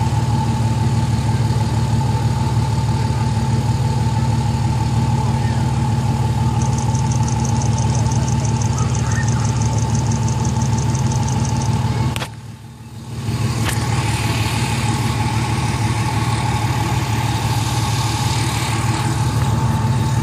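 A motor vehicle engine running steadily with a low hum and a steady whine above it, with a fast light ticking for about five seconds in the middle. The sound drops out briefly near the twelve-second mark, then returns.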